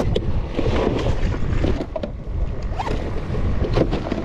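Wind noise on the microphone over choppy water slapping a small plastic boat's hull, with a few scattered knocks from gear being handled on the deck.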